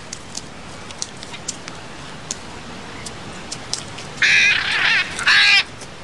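Hyacinth macaws giving two loud, harsh squawks, the first about four seconds in and the second about a second later. Scattered faint clicks come before them.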